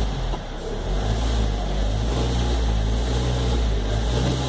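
Toyota Corolla 1.8 VVT-i engine running steadily in reverse gear with the brake held, with a low vibrating rattle. The rattle is the sign of a failing accessory drive belt tensioner.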